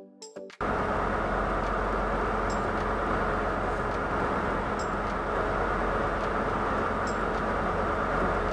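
Fishing boat's engine running steadily while the boat is underway, a loud, even noise that cuts out for about half a second at the very start.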